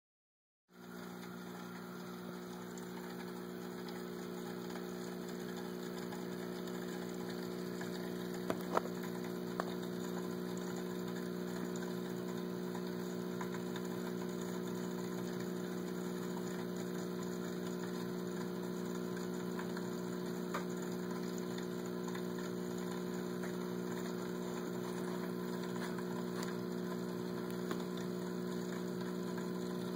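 Aquarium air pump humming steadily, an electric buzz with several steady tones. A few short clicks break through, three close together about a third of the way in, then one or two more later.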